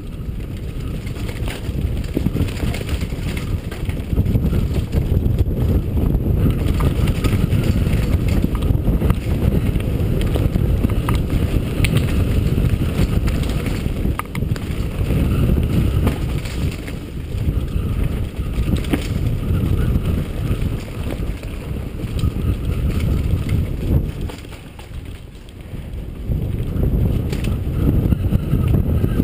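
Wind rushing over the microphone of a camera on a mountain bike riding down a dirt forest trail, with tyre noise and scattered clicks and rattles from the bike over bumps. It goes quieter for a couple of seconds near the end.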